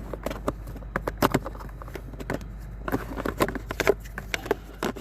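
Plastic cabin air filter cover being fitted into its housing: a run of light, irregular clicks and knocks as its hooks are worked into place.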